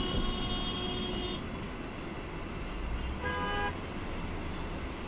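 Car horn honking twice: a long honk of about a second and a half, then a shorter, lower-pitched honk about three seconds in, over steady road and engine noise inside a moving car.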